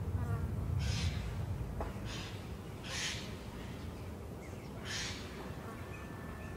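Thick spinach and lamb curry simmering in a pan, bubbles bursting with short spluttering hisses every second or two. It is briefly stirred with a wooden spoon at the start.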